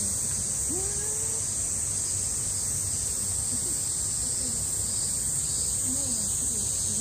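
A steady, high-pitched chorus of cicadas, with faint voices of people in the distance here and there.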